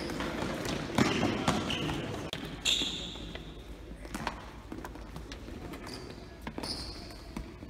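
Basketballs bouncing irregularly on a gym floor, the thuds echoing in the hall. There are two short high squeaks, about three seconds and seven seconds in.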